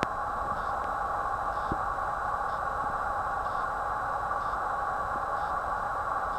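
Steady background hiss, even and unchanging, with no speech or distinct events.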